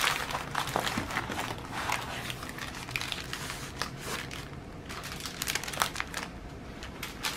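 Plastic packets of diamond painting drills crinkling and rustling as they are handled and wrapped up. The crinkles come irregularly, busier in the first half, with a few sharper ones near the end.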